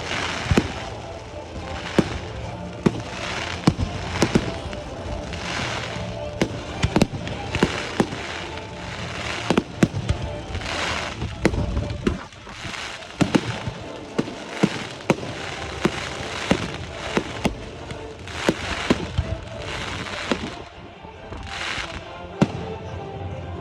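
New Year fireworks display: a steady run of sharp bangs, with hissing crackle swells about once a second, over music.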